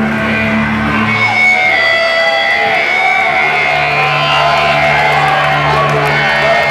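Live rock band playing loud, distorted electric guitar music, with long held notes; the low note changes about a second in and again partway through.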